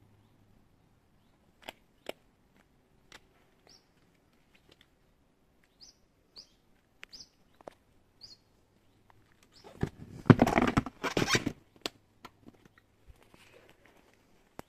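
A motorcycle seat being fitted back on and pressed into place: a loud scraping rattle lasting about two seconds, starting about ten seconds in. Before it come a few sharp clicks and several short, high bird chirps.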